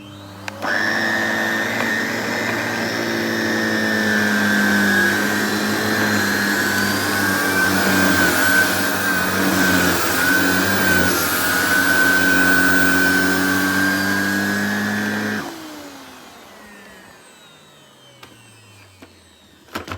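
Miele Revolution 5000 vacuum cleaner running with its powered floor head, now working after its hose and circuit-board fault was fixed. It comes up to full speed just under a second in, runs steadily, is switched off about fifteen seconds in and winds down with falling pitch.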